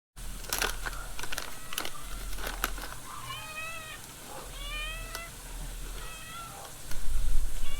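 A domestic cat meowing: several short calls with a wavering pitch, one after another, after a few sharp clicks in the first seconds.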